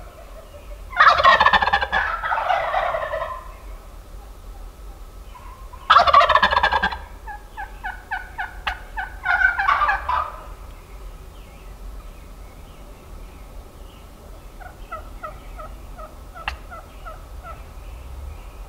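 Wild turkey gobbling, loud, twice: about a second in and again around six seconds in. After the second gobble comes a run of shorter notes, and near the end there is a faint string of short, evenly spaced turkey calls.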